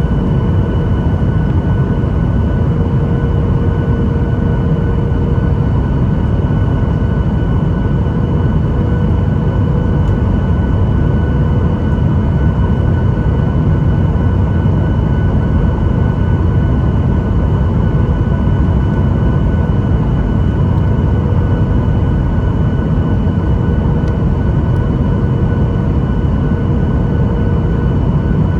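Jet airliner cabin noise in flight: a steady low rumble of engines and airflow with faint steady whining tones, unchanging throughout.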